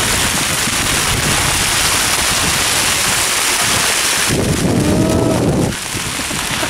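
Hail pelting a sailing catamaran in strong wind: a loud, dense, steady hiss of hailstones on the boat and sail with wind buffeting the microphone. About four seconds in, a deeper rumble takes over for a second or so.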